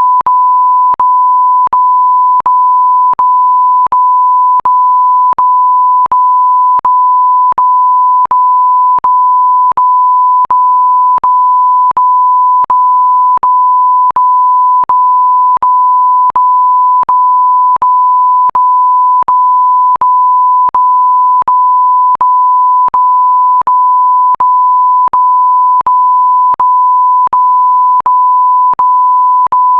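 Electronic beep: one loud, steady pure tone at a single pitch, repeated as long beeps of about 0.7 s with only a very brief break between them, each break marked by a faint click.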